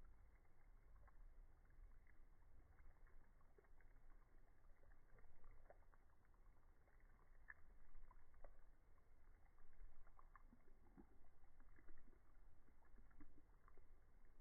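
Near silence: a faint low rumble with scattered faint ticks, and no gunshot or impact.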